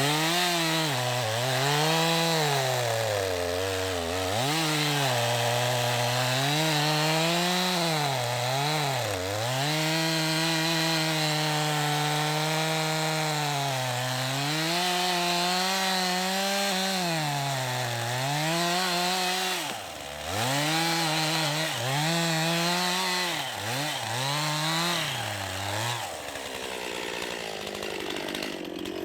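Gas chainsaw with a 20-inch bar ripping lengthwise through a large red oak log. The engine note sags and recovers again and again as the chain loads up in the cut, and it turns quieter and less distinct near the end.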